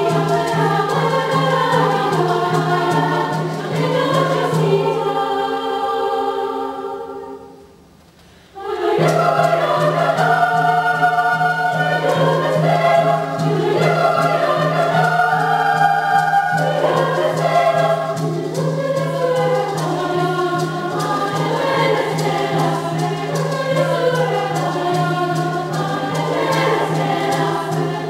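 A choir singing over a steady low held note. The music fades away about seven seconds in and starts again suddenly about a second later.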